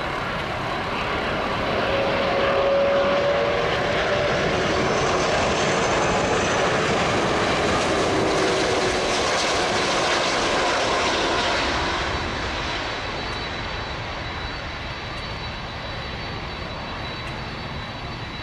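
Airbus A330 jet airliner on final approach passing close by, its engines a loud, steady rush with a whine that drifts down in pitch as it goes past. The sound grows quieter from about twelve seconds in as the aircraft moves away toward touchdown.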